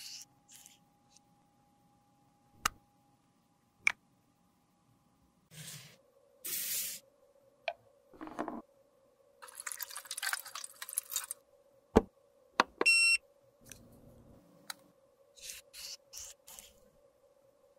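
Makeup packaging being handled: scattered sharp clicks and taps of cases and caps, with short scraping hisses in between. The loudest is a sharp click a little past the middle, followed by a brief high-pitched tone.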